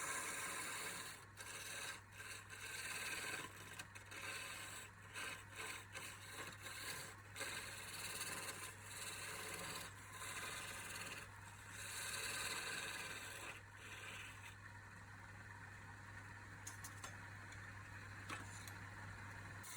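Wood on a spinning lathe being scraped or rubbed, in uneven strokes, over the steady low hum of the lathe motor. The scraping eases off about two-thirds of the way through, leaving mostly the hum and a lighter steady rubbing.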